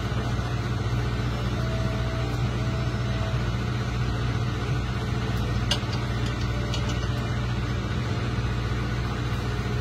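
Steady low drone of a fishing boat's engine running, with a few faint clicks past the middle.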